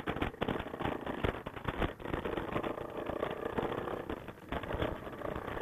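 Yamaha Grizzly ATV engine running steadily, with frequent knocks and rattles over it.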